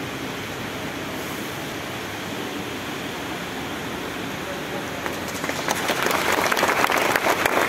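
A steady hiss, then from about five and a half seconds in a crowd starts clapping, the applause growing louder toward the end.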